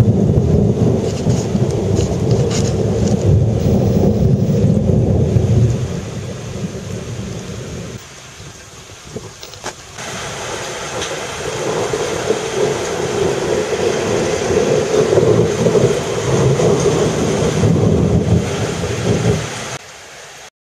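Thunderstorm: long rolls of thunder over steady rain, loud for the first several seconds, easing for a few seconds, then swelling again from about ten seconds in with a stronger rain hiss.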